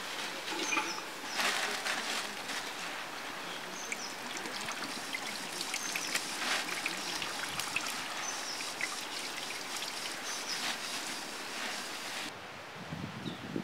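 Handfuls of fresh leafy greens rustling and crackling as they are dropped into a large aluminium pot, then a softer, lower rustle near the end as hands press the leaves down.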